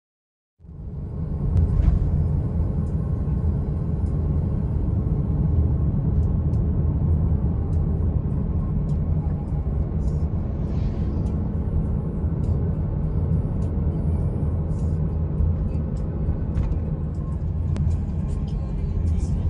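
Car driving along a paved road, heard from inside the cabin: a steady low rumble of road and engine noise that starts suddenly about half a second in.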